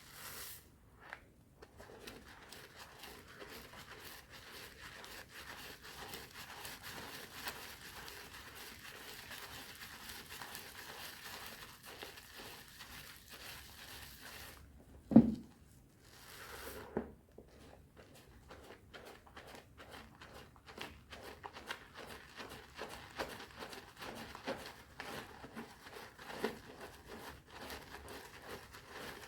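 Hands lathering a bar of soap in thick foam with powder: dense wet squishing and crackling of the lather. About halfway through the squishing stops briefly, there is one loud knock, and then the lather goes on in separate squelching strokes.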